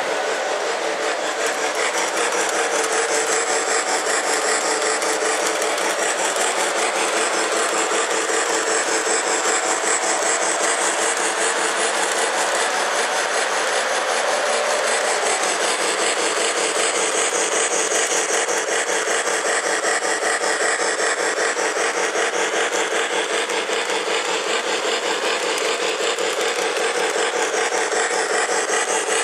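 Model steam locomotive and its passenger cars running along the track: a steady whirring rumble of motor and wheels with a fast, even rattle.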